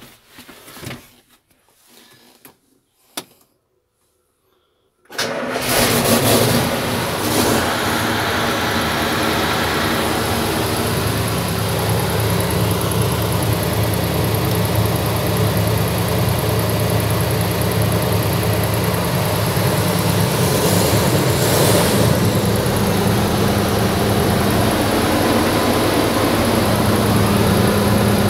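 Claas Jaguar 840 forage harvester's diesel engine, heard from the cab: a few light clicks and knocks, then about five seconds in the engine fires and runs steadily, its note rising slightly near the end.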